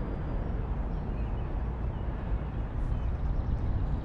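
Low, steady rumbling noise of wind and water at a canoe's waterline, heard through an action camera's microphone mounted just above the water.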